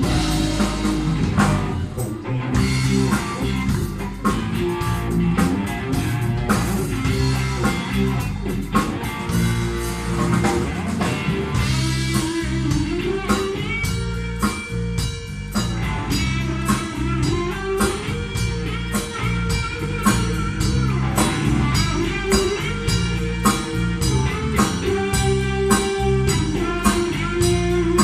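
Live band playing electric guitar, bass guitar and drum kit together, with a steady drum beat under sustained, bending guitar notes.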